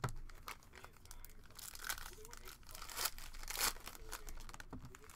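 Foil trading-card pack wrappers crinkling and tearing open in the hands, in a few short sharp crackles.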